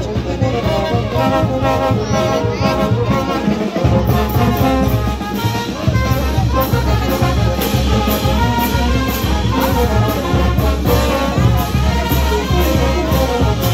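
Brass band playing a tune on the march, trumpets and sousaphones together over a pulsing bass line.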